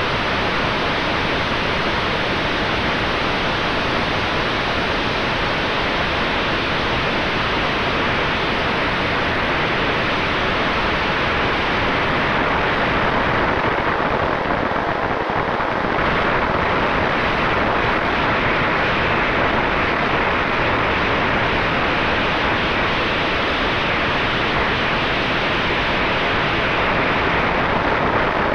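Steady rushing wind noise on the onboard camera of a fast electric RC plane (Multiplex FunJet Ultra 2) in flight, with a faint steady whine underneath. The hiss thins a little in its upper part about halfway through, then returns.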